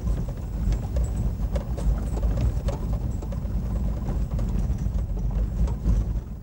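Cabin sound of a vehicle driving over an unpaved, rough road: a steady low engine and road rumble with frequent rattles and knocks from the body over bumps.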